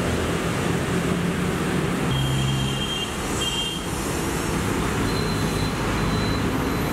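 Steady road traffic noise with engines running, and two short faint high beeps about two and three and a half seconds in.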